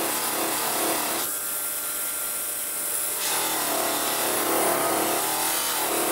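Foredom bench lathe motor running steadily while a metal cuff is pressed against its spinning buffing wheel charged with polishing compound, rubbing in two stretches: a short one in the first second and a longer one from about three seconds in.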